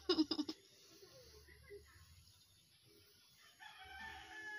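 A rooster crowing, one long drawn-out call that slowly falls in pitch, starting near the end. A brief louder burst of sound comes at the very start.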